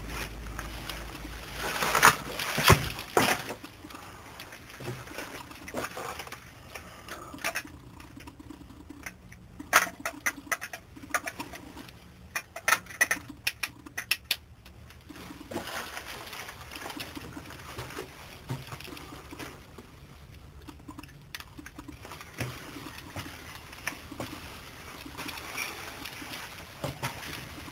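Footsteps and scuffs on the dirt floor of a rock mine tunnel, with irregular clicks and knocks, loudest about two seconds in and coming thickly between about eight and fifteen seconds in.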